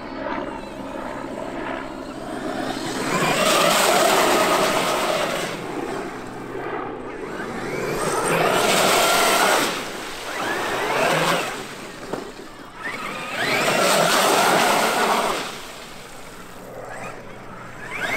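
Traxxas X-Maxx brushless electric RC monster truck whining through three bursts of throttle about five seconds apart, its tyres throwing up a hissing spray as it tears through muddy puddles, with quieter coasting between.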